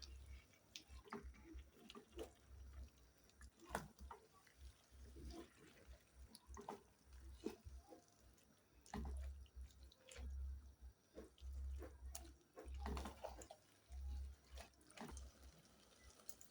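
Faint scattered drips and small clicks with low thumps now and then, barely above silence, from water added to a cooking pot of bananas.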